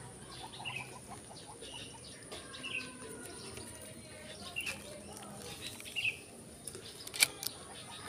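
A small bird chirping in short calls, one about every second, over a faint steady background. A single sharp click comes near the end.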